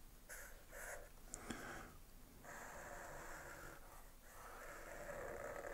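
Black permanent marker rubbing across paper, first in a few short strokes, then in two longer strokes, while shading is drawn onto a peace sign.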